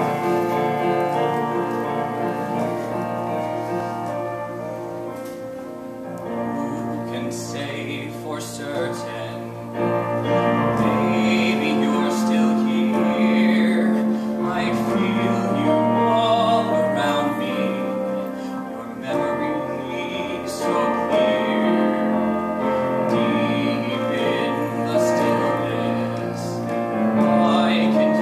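Piano introduction, then a young man singing a slow ballad solo over the piano accompaniment, his voice coming in about six seconds in.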